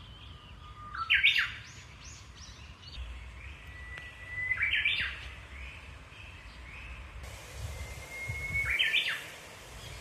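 Japanese bush warbler singing its "hoo-hokekyo" song three times, about every three and a half seconds: each a long held whistle that breaks into a quick flourish of sharp notes.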